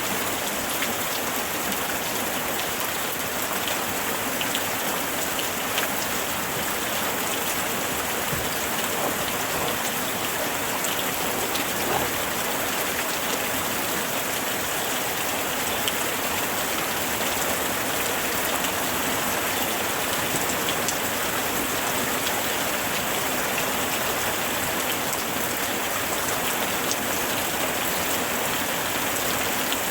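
Heavy rain falling steadily on tree leaves, a dense even hiss sprinkled with the sharp ticks of individual drops.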